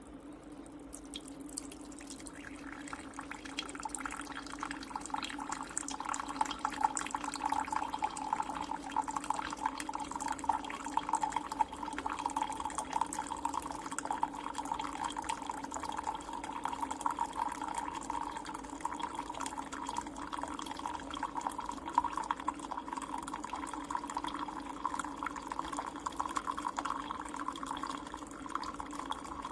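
Ninja Pods & Grounds single-serve coffee maker brewing: a steady stream of coffee pouring and trickling into a cup, starting about two seconds in.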